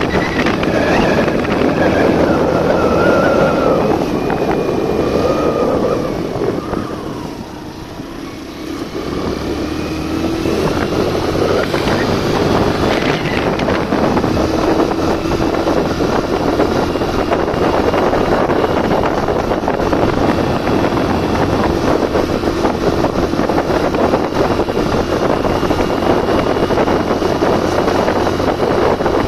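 Suzuki GN125 single-cylinder four-stroke engine running under load on an off-road climb with a passenger aboard. The revs fall away briefly about seven seconds in, then pick up again and hold steady with a slowly rising pitch.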